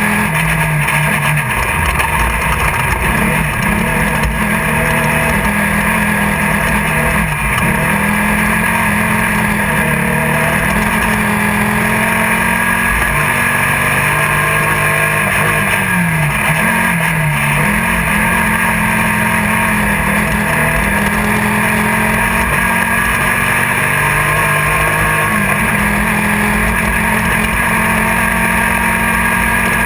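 Air-cooled VW engine of a Class 1600 off-road race buggy running hard under load, heard from inside the car over steady noise. The engine pitch dips briefly and climbs again twice, about a third of the way in and just past halfway.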